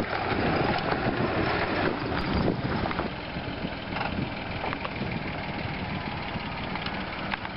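A WWII-style military jeep's engine running as it drives past close by, loudest in the first three seconds, then a military Land Rover's engine as it comes slowly up a dirt track. Wind noise on the microphone runs under the engines.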